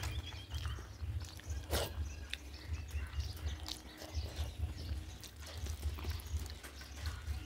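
Close-miked eating sounds: wet chewing and lip smacks from people eating rice and curry by hand, in scattered short clicks over a steady low rumble.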